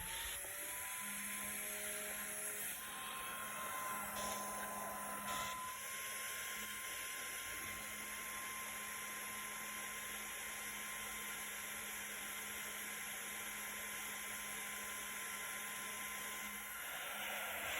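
A Pengda 3010 dual-ball-bearing hotend cooling fan, rated 8262 RPM, spinning up from standstill. Its whine rises in pitch over the first second, then it runs steadily at full speed with a high, even whine over a rushing hiss of air.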